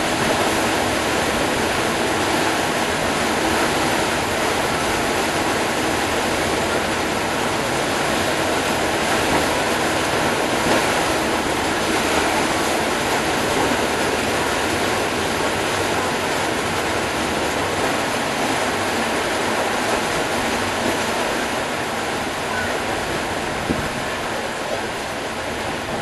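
Steady rush of water churned up by a moving Batobus river boat, heard from its open deck, easing slightly near the end.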